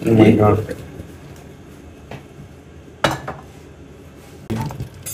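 Kitchen glassware and a blender jar knocking and clinking on a counter as a drink is poured into a glass pitcher and the jar is set down. There is a small click, then one sharp knock about three seconds in.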